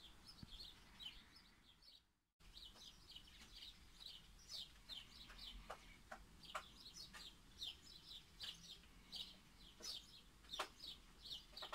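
Small birds chirping faintly, many short high chirps a second, with a brief silent gap about two seconds in.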